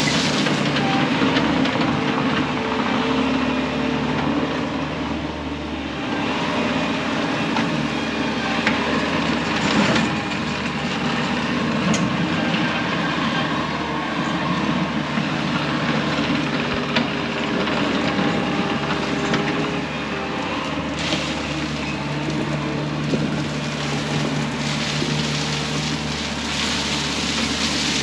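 Bobcat T630 compact track loader's diesel engine running steadily under work, its pitch shifting a little as the throttle and load change, with a few sharp knocks.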